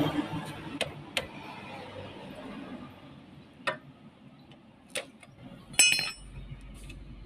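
Scattered sharp metal clicks and clinks of small parts being handled, about five in all. The loudest is a ringing clink about six seconds in.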